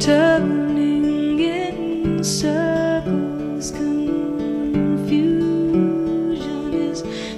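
Background music with acoustic guitar, and a melody on top whose held notes waver in pitch.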